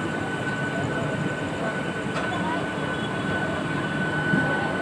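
Indian Railways suburban train running, a steady rumble with a constant high whine held throughout.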